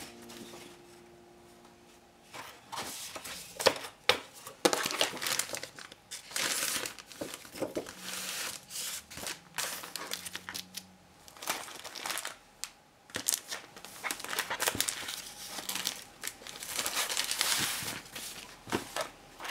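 Paper drawing sheets and clear plastic punched sheet protectors rustling and crinkling as they are handled, slid out and laid down, in irregular rustles with a few sharper crackles about four seconds in.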